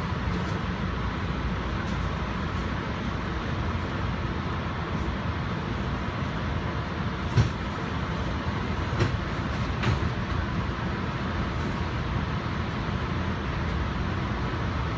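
Commuter train coach running along the line, heard from inside: steady wheel-on-rail running noise, with a few short knocks about seven, nine and ten seconds in.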